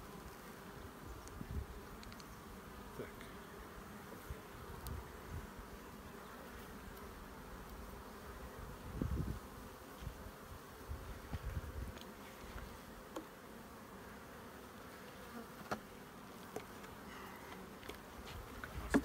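Honey bees humming steadily over an open hive, with scattered short clicks and knocks from wooden hive frames being handled.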